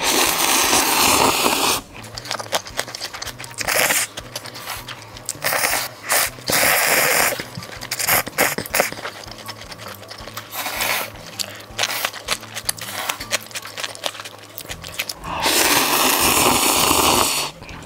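A person slurping cup ramen noodles in several long, noisy pulls, with chewing and small clicks between them.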